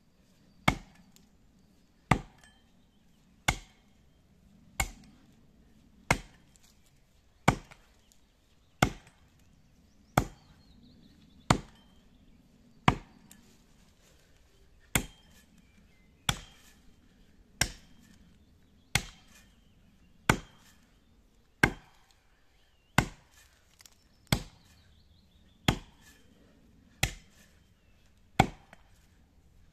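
Double-bit axe chopping into the trunk of a standing pine: sharp, evenly spaced blows about every 1.3 seconds, with one slightly longer pause about halfway through.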